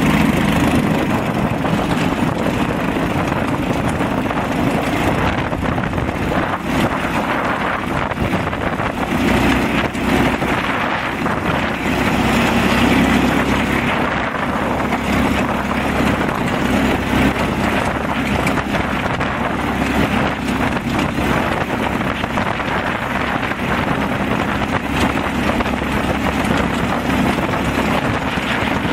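Go-kart's small gasoline engine, fitted with a torque converter drive, running steadily under way. The engine note swells and eases a little as it drives along.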